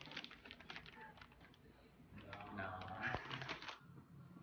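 Rapid crinkling clicks of a chip bag being handled, followed by a short murmured voice in the middle.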